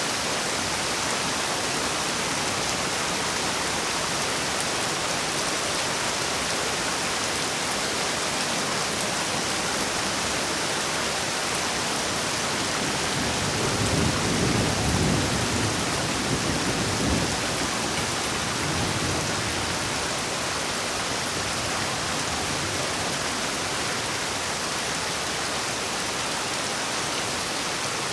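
Heavy rain falling in a steady hiss, with a roll of thunder rumbling low from about halfway through and fading out a few seconds later.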